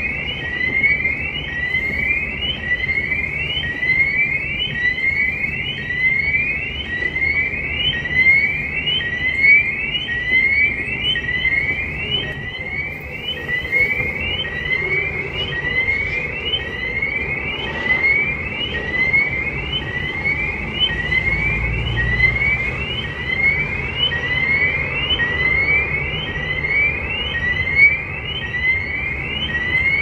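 Siren sounding in a rapid repeating pattern, each note sweeping up in pitch, about three sweeps every two seconds, over a low steady rumble of city street traffic.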